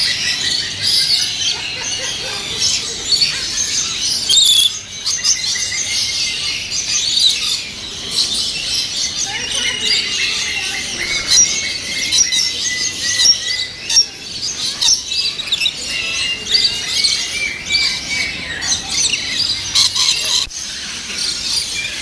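A flock of lories and lorikeets calling: a continuous din of high-pitched screeches and chirps.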